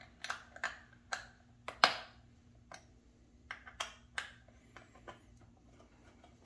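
Light, irregular metal clicks and taps of a 4 mm Allen key working in a motorcycle side-cover screw as it is loosened, the loudest a sharp click about two seconds in.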